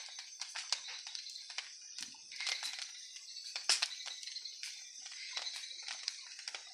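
Large wood bonfire crackling, with irregular sharp pops; the loudest pop comes a little before four seconds in.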